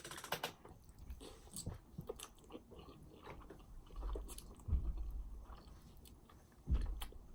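A person chewing food close to the microphone: scattered soft clicks and smacks of eating, with a couple of low thumps midway and near the end.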